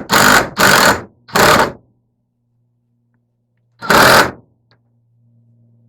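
Power drill driving sheet metal screws in short bursts, three quick runs in the first two seconds and another about four seconds in.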